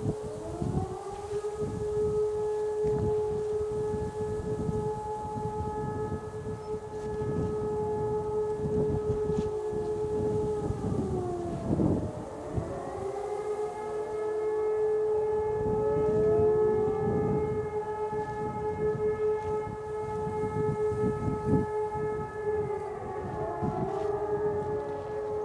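Several E57 electromechanical motor sirens sounding the German fire alarm signal together, the loudest about 550 m away: a steady howl that winds up, holds, slides down near the middle, winds up again and starts to slide down near the end, while other sirens rise and fall out of step. Wind rumbles on the microphone.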